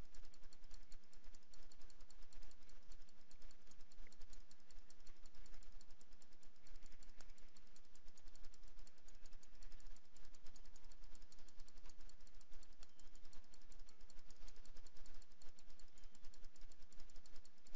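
Rapid, continuous clicking of a computer mouse, several clicks a second, as stitch points are placed one after another to build up an embroidery fill.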